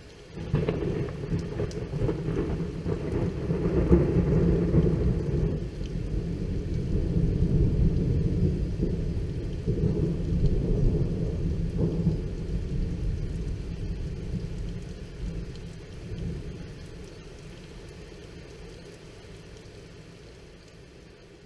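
A thunderclap breaking suddenly about half a second in, then rolling on as a long, low rumble that slowly dies away, with rain falling.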